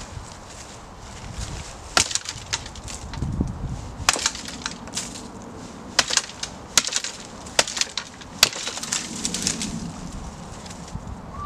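Dead wood cracking and snapping: a string of sharp, irregular cracks starting about two seconds in, as dry dead saplings and branches in a thicket are broken out, with a denser crackling of twigs near the end.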